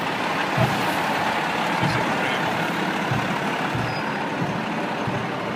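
Fire engine rolling slowly past close by, its diesel engine running under a steady rumble with tyre and road noise, easing off slightly near the end as it moves away.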